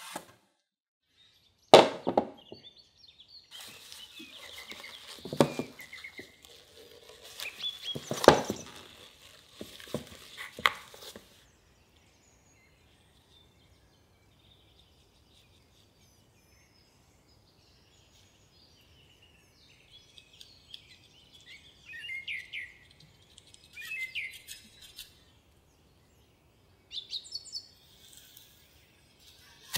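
Kitchen handling sounds from working with a silicone dome mold: a sharp knock about two seconds in, then scattered clatter and taps for several seconds, a long quiet stretch, and later faint, short high-pitched squeaks and rubbing.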